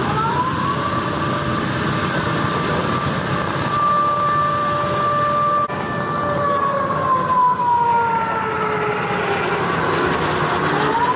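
Aircraft engine passing overhead: a loud, steady whining tone that glides slowly down in pitch as it goes by, with a second tone rising in pitch near the end.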